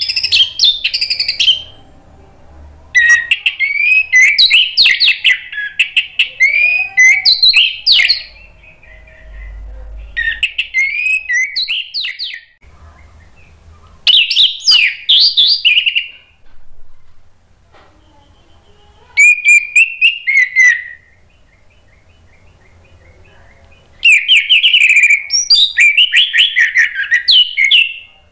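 Orange-headed thrush (anis merah) singing: loud, rapid runs of varied whistled notes and trills, delivered in several bursts with short pauses between them.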